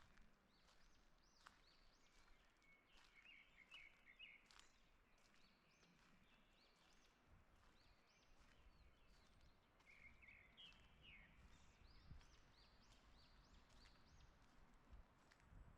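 Faint forest birdsong: several songbirds chirping with many short high notes throughout, and quick twittering runs about three seconds in and again about ten seconds in.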